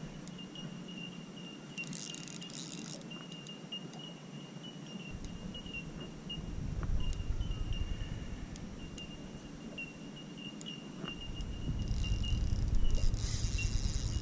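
Spinning fishing reel being wound in short spells while a hooked fish is played on a bent rod, a light rattling from the reel, over a steady high-pitched whine. A low rumble swells in about halfway through and again near the end.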